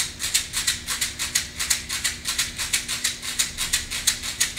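Hand rattle shaken in a steady, even rhythm, about five shakes a second.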